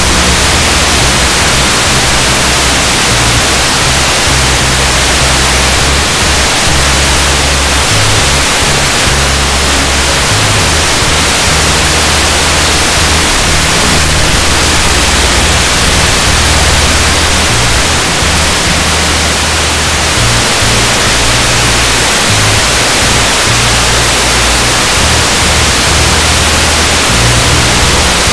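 Loud, steady static hiss, with a music bass line stepping between low notes beneath it.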